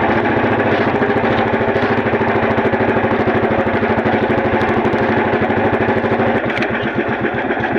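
Small engine running steadily with a fast, even beat, easing slightly near the end.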